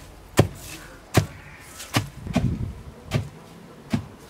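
Long wooden pestle pounding fresh neem leaves in a stone mortar, crushing them to a paste: dull thuds a little under once a second, five strokes.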